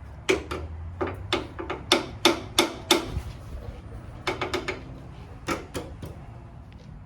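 Metal hand tools and parts clicking and clanking: a series of sharp knocks a few per second, with a quick run of ratchet-like ticks about halfway through.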